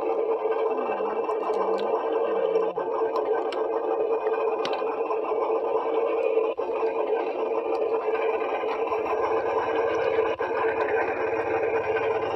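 A small electric motor running with a steady, unchanging hum, with a few faint clicks.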